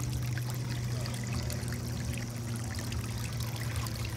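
Water trickling and splashing steadily into a small garden fish pond, over a steady low hum.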